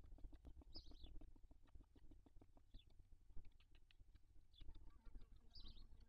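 Barn owl adult shuffling and working over its downy chicks in the nest, making a run of faint scratchy clicks and rustles. Short high chirps from the young chicks come about a second in and again near the end.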